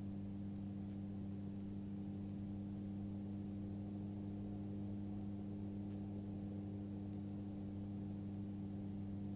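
Magni M24 gyrocopter in cruise flight, heard from inside the enclosed cockpit: a steady, low, muffled engine and propeller drone with an even hum that does not change.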